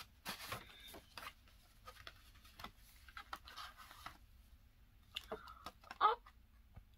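Paper rustling and crinkling in short, scattered bursts as a letter is taken out and opened.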